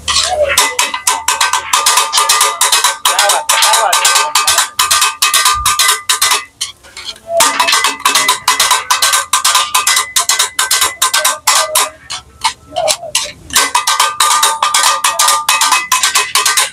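Two steel blades chopping chicken kothu parotta on a flat iron tawa in a fast drumming rhythm, the metal ringing with each strike. The beat breaks off for about a second roughly six seconds in, then carries on.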